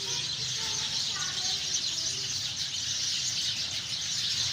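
A flock of sparrows chirping steadily, many birds calling over one another in a dense, unbroken chatter.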